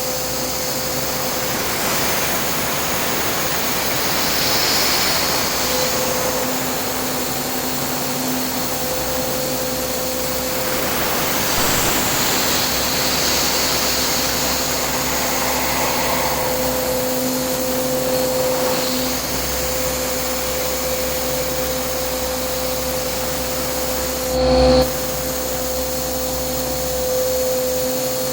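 A CNC vertical machining centre milling carbon steel with an 8 mm solid carbide end mill. The spindle and cut make a steady whine over a hissing noise, with a brief louder burst about 24 seconds in.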